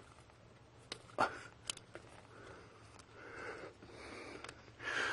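A few short, sharp clicks and handling noises, the loudest about a second in, with soft breathing close to the microphone.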